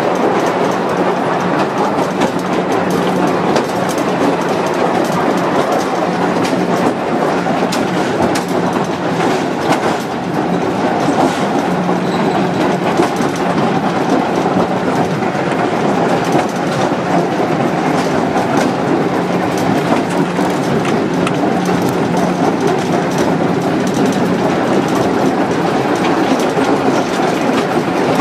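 Open passenger car of a steep cable-hauled incline railway rattling along its track, wheels clicking over the rail joints, with a low hum under the clatter that comes and goes.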